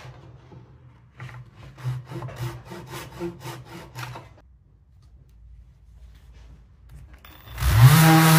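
A wooden-handled hand scraper drawn over a rough timber slab in about ten quick strokes, scraping off hardened resin. Near the end a Festool random-orbit sander starts up, its whine rising in pitch and then running steadily.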